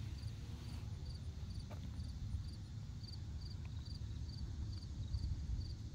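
A cricket chirping steadily, about two short high chirps a second, each a quick trill of a few pulses, over a steady low rumble.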